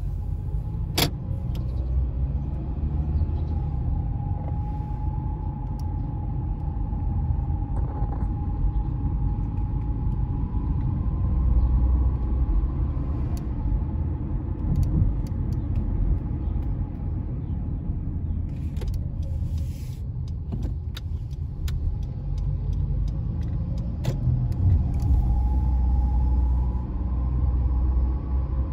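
Honda CR-V driving, with the steady low rumble of engine and tyres on the road and a faint whine that rises in pitch now and then with speed. Scattered light clicks, with a sharp one about a second in.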